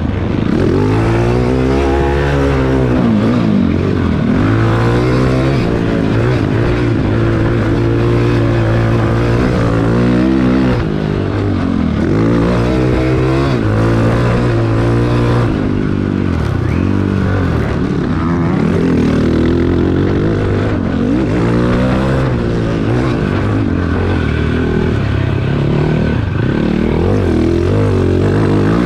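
Cannondale ATV's single-cylinder four-stroke engine being ridden hard, revving up and down over and over as the throttle is opened and closed, its pitch rising and falling.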